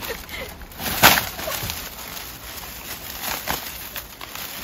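Footsteps on a wooden deck and plastic carrier bags rustling as they are carried, with one sharp noise about a second in that is the loudest moment.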